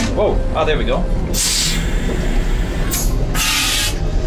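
Two short hissing sprays from a washroom fixture aboard a moving train, each lasting under a second, over the train's steady rumble.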